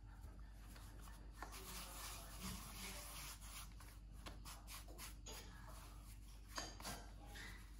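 Irregular rubbing and scraping strokes of hands and objects on a surface, with a sharper knock a little before the end, over a steady low hum.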